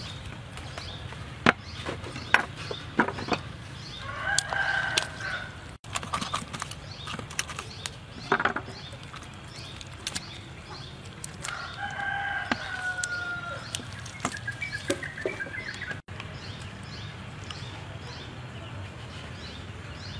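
A rooster crows twice, once about four seconds in and again about twelve seconds in, each a long call, the second falling slightly at its end. Scattered short clicks run between the calls.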